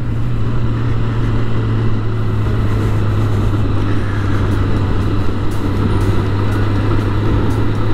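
Sport motorcycle engine running at a steady cruising speed, a constant low drone under wind and road noise.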